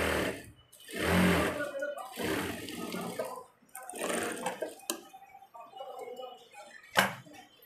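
Industrial single-needle lockstitch sewing machine stitching a sleeve seam in short runs, three or four, stopping about four and a half seconds in. Near the end one sharp snip: tailor's shears cutting the thread at the needle.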